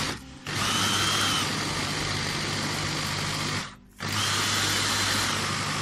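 Electric food processor motor running in two pulses, about three seconds and then about two, with a brief stop between. It is chopping fresh red chili peppers with garlic and spices into harissa paste.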